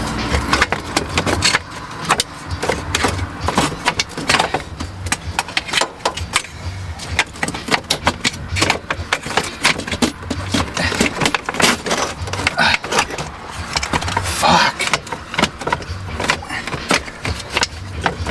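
Rapid, irregular metallic clicking and rattling of hand tools and loose parts being handled, with a low hum underneath.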